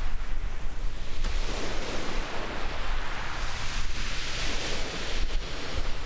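Wind buffeting the microphone outdoors by open water: a steady rushing noise with a gusty low rumble, the hiss swelling briefly a little past the middle.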